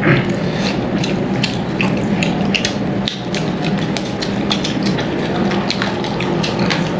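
Close-up eating sounds from chicken curry and rice: chewing and mouth noises with many small, irregular clicks over a steady low background hum.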